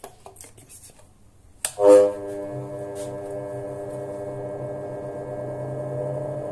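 Rikon bench grinder switched on with a click a little under two seconds in: the motor starts with a brief loud surge and then runs steadily with a hum and a whine, spinning the CBN wheel at low speed.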